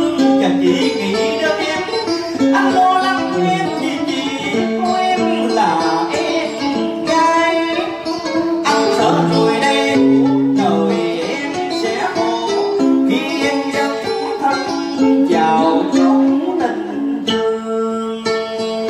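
Live cải lương music: plucked string instruments playing a continuous stepping melody.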